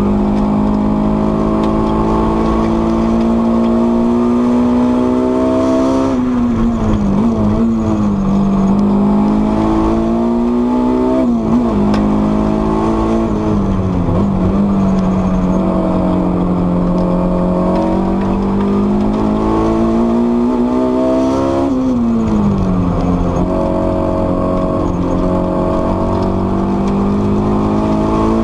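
Honda S2000's HKS-supercharged four-cylinder engine under hard track driving, heard from inside the cabin. The revs climb under throttle and fall away sharply several times, about 6, 11 and 22 seconds in, as the car lifts and changes gear through the corners.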